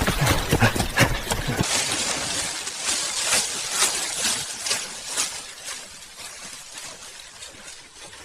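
Rapid crackling and rustling over a hiss, loudest in the first two seconds, then fading away gradually.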